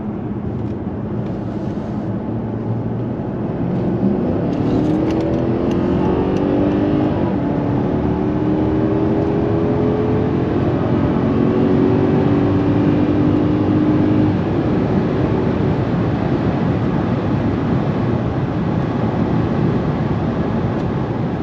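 Mercedes-Benz S500L's twin-turbo V8 pulling under acceleration, its note rising about four seconds in and then holding steady at cruise before fading back after about fourteen seconds. Steady tyre and road noise runs underneath the whole time.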